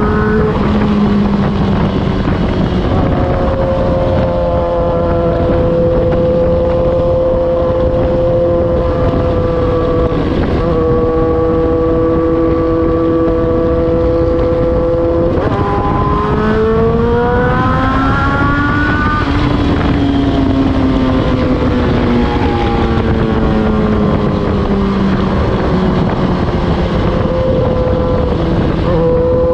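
Suzuki GSX-R1000's inline-four engine running through an Austin Racing aftermarket muffler, its exhaust note holding a steady pitch for long stretches, then climbing for a few seconds about two-thirds of the way through and sinking slowly again. A steady rushing noise sits beneath the engine note.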